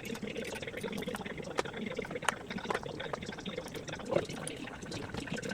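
Oil running in a steady stream from the mower's transmission drain into a drain pan, with scattered small clicks and ticks.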